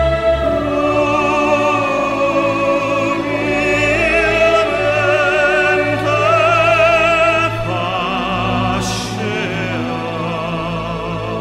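Background music: a sung melody with strong vibrato, operatic in style, over instrumental accompaniment.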